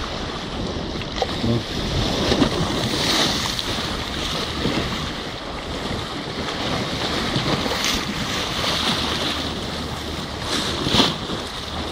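Fast tidal current swirling and churning past a stone harbour wall, a steady rushing of water that swells now and then, with wind buffeting the microphone.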